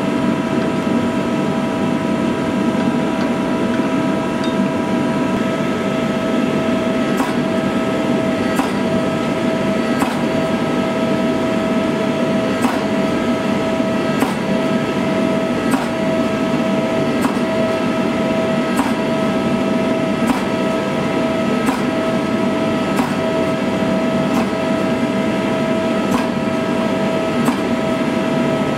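Forging press running with a steady, loud machine hum and whine. From about seven seconds in, a sharp knock comes about every one and a half seconds as the press works a red-hot steel blade blank.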